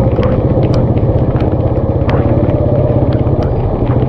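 Small engine running steadily close by, a fast low puttering without a change in speed, with scattered light clicks over it.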